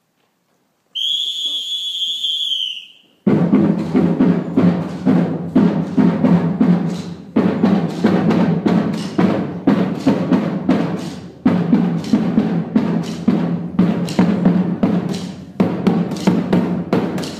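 A whistle blows one steady blast of about two seconds. Then a drumming ensemble comes in loudly: many drums struck together in a fast rhythm, with a strong low thud, starting fresh phrases about every four seconds.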